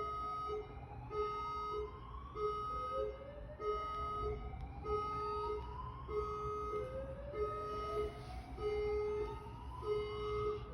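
Two sirens sounding at once. One repeats a steady two-tone pattern about every 1.3 seconds, and the other gives a rising sweep that starts over about every two seconds.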